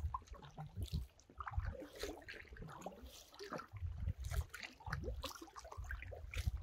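Paddling an inflatable kayak: irregular splashes and drips of water from the paddle blades, over soft low thumps.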